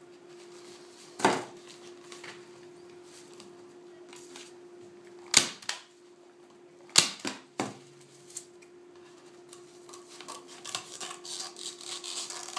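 Manual staple gun firing staples through canvas into a wooden stretcher bar: four sharp snaps, the loudest about five and seven seconds in. Near the end, scissors snip and crackle through the canvas edge.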